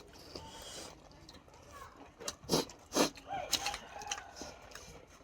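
Mukbang eating sounds: several sharp, crisp bites and mouth smacks while chewing chicken, bunched together in the second half.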